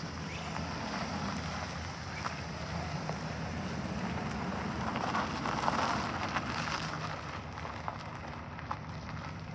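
Chevrolet Express passenger van driving past on gravel: a low engine hum with tyres crunching over the stones, loudest as it passes close about five to six seconds in, then easing as it drives away.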